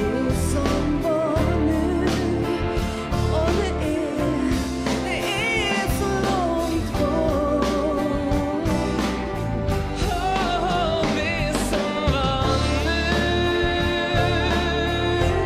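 A man and a woman singing a pop ballad as a duet, live, backed by a band with electric guitar, bass and drums.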